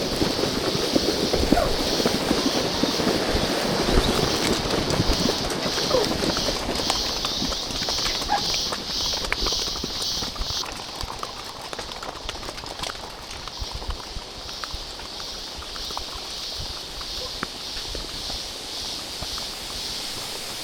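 Horse hooves clip-clopping along a trail under a rider, heavier in the first half and easing off after about ten seconds. A high insect chorus pulses about twice a second behind them.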